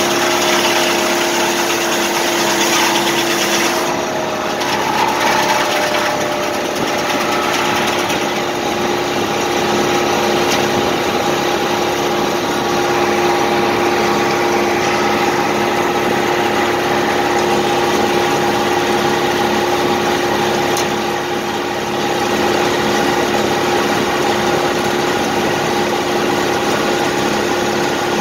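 Engine running steadily to drive a portable circular sawmill, with the large saw blade spinning free and not cutting, giving a steady whine over the engine. The sound shifts slightly about four seconds in.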